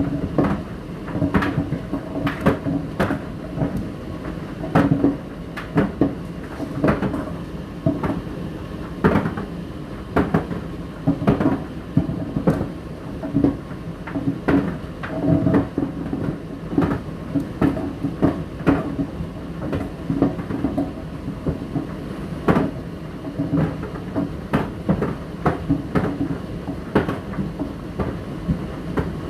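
Indesit IDC8T3 condenser tumble dryer running: a steady low motor hum under irregular knocks, one or two a second, as the load tumbles in the turning drum.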